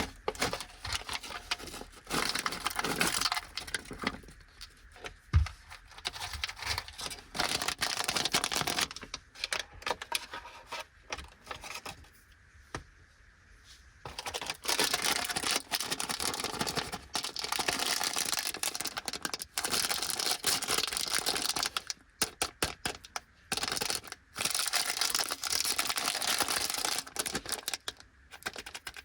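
Plastic snack packaging being crinkled and torn open, in irregular rustling spells with one dull knock about five seconds in. From about halfway through, a multi-pack biscuit bag crinkles almost continuously as it is handled and opened.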